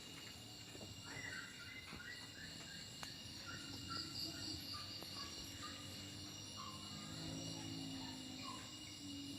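Steady chorus of crickets and other insects, with faint short higher notes scattered through it and a few light clicks.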